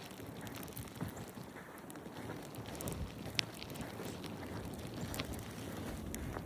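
Wind buffeting the microphone in a snowstorm: a steady low rumbling noise, with scattered faint clicks and one sharper click about three and a half seconds in.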